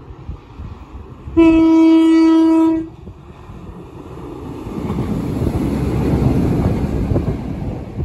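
Network Rail Class 950 track-assessment diesel unit sounding its horn once, a single steady note lasting about a second and a half. It then runs up and passes beneath, its engines and wheels on the rails rising to a loud rumble.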